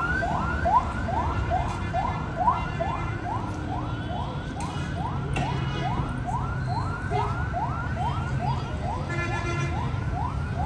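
Electronic siren in a fast yelp pattern: a tone sweeps upward again and again, about twice a second, over a steady low street rumble.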